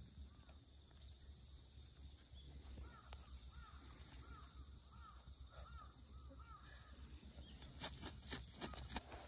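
Faint bird calls in the distance: a run of about eight short arched calls, roughly two a second. A few brief rustles follow near the end.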